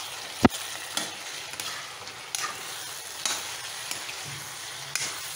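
Pork pieces sizzling in a kadai as their liquid cooks off, with a spoon stirring and scraping through them. Several short scrapes and knocks of the spoon on the pan, the loudest a sharp knock about half a second in.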